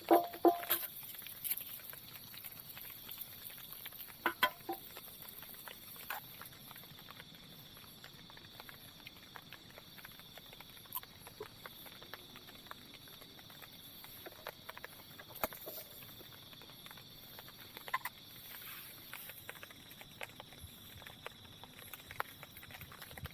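Scattered light taps and clicks, a few louder ones at the start and about four seconds in, over a faint steady high-pitched background.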